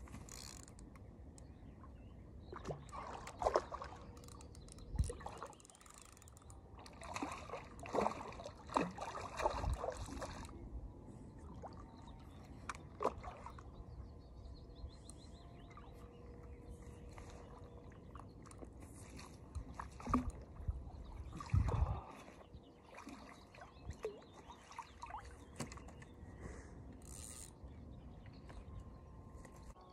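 Scattered knocks, clicks and rustles with some trickling water, from handling a freshly caught fish and fishing gear.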